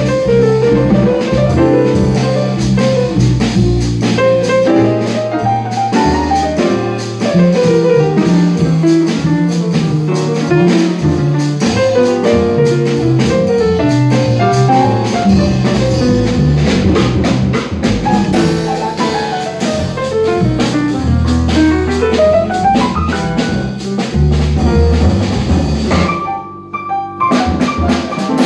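Live jazz piano trio: grand piano, upright double bass and drum kit playing together, the piano in runs of notes that climb and fall over the bass line and cymbals. The sound thins briefly near the end.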